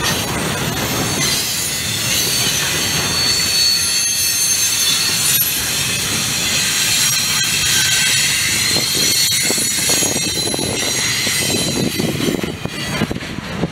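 Double-stack intermodal container train rolling past, steel wheels squealing in several high, steady tones over the rumble of the cars. The squeal fades out near the end.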